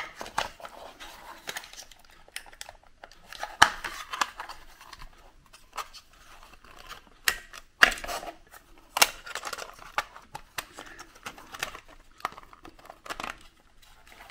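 Irregular plastic clicks, taps and rustles as a digital alarm clock's plastic case is handled and its parts fitted back together, with a few sharper knocks scattered through.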